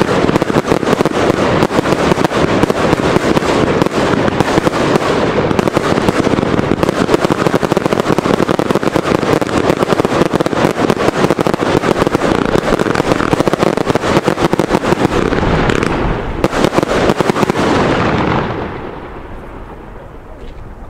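Three Röder Gold Monster firework batteries firing at once: a dense, continuous crackle of shots and crackling star bursts, dying away near the end.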